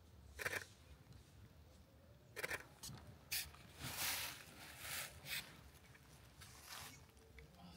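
Irregular crunching footsteps on a dry path, a scattered handful of short scuffs at uneven intervals.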